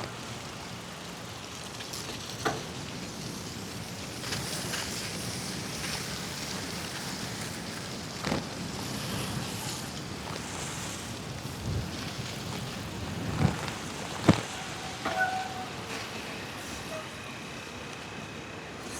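Steady wet hiss of a bicycle's tyres rolling over a slushy street, with wind on the microphone. It is broken by a few sharp knocks from bumps, the loudest two close together late on. A faint high steady tone comes in near the end.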